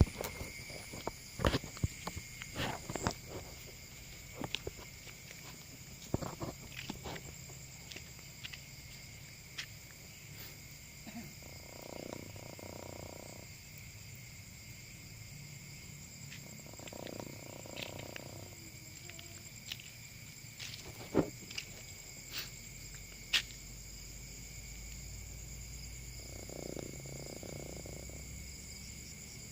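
Night insect chorus with steady high-pitched trilling, broken by scattered sharp clicks and by three hoarse sounds of a second or two each, a little past a third of the way in, just past halfway and near the end.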